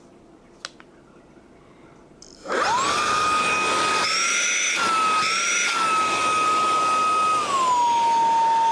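HOTO handheld car vacuum cleaner switched on about two and a half seconds in: its small motor spins up quickly and runs with a steady high whine. The pitch shifts briefly twice in the middle and steps down a little near the end. Before it starts there is only a faint click.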